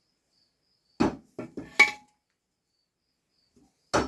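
Metal parts of a manual transmission clanking as the opened case is handled: a quick cluster of four knocks about a second in, the last ringing, and one more knock near the end.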